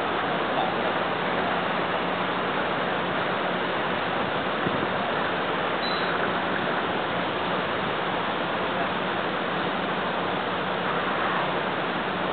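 Steady outdoor background noise, an even hiss-like wash with no distinct events.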